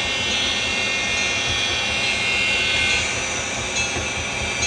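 N-scale model diesel locomotives running past on the track, a steady high whine of their small electric motors with wheel and track noise underneath.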